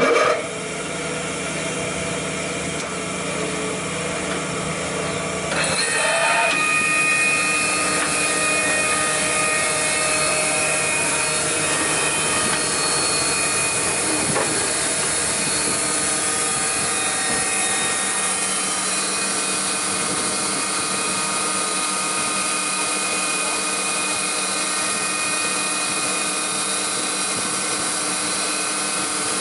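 Altendorf F-90 sliding-table panel saw switched on: its motor and saw blade start suddenly and then run steadily with no cut being made, a steady machine sound with several steady tones. It gets louder about six seconds in and stays at that level.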